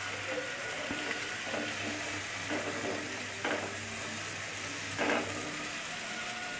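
Potatoes, onions and tomatoes in spice paste sizzling in a nonstick frying pan as a spatula stirs and turns them, with a few short scraping strokes, the loudest about five seconds in. The masala is being fried down.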